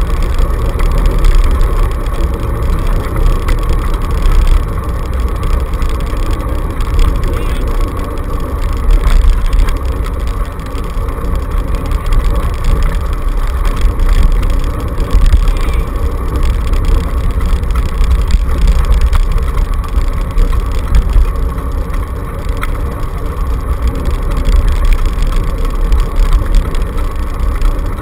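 A dog scooter rolling fast over a dirt trail behind its team, heard through a camera mounted on the handlebars. There is a loud, steady rumble of tyres and vibrating rig.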